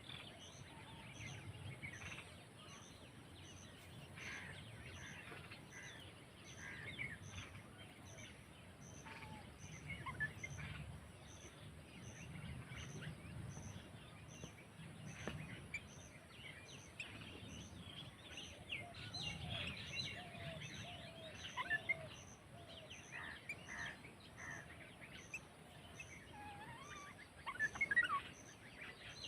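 Outdoor bird chorus: many birds give short chirps and calls throughout, with a run of short whistled notes in the second half.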